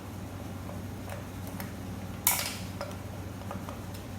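Light metallic clicks and taps as reverse servo parts and tools are handled on a Ford 4R75E transmission case, with one sharper metallic clink a little past halfway. A steady low hum runs underneath.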